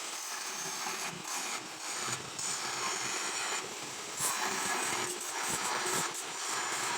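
Noisy background from nearby work in a fabrication shop: a continuous rough, crackling hiss that dips briefly a few times and grows a little louder about four seconds in.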